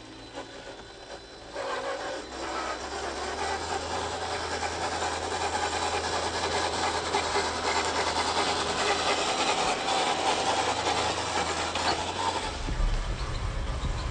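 Cross RC Demon scale crawler driving: the electric motor and geared transmission whine steadily under a rasping, scraping noise, coming in about two seconds in and growing louder. A deeper low rumble joins near the end.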